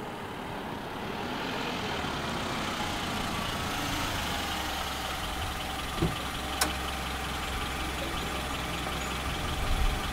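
A motor vehicle engine idling steadily with a low hum, with two short clicks about six seconds in.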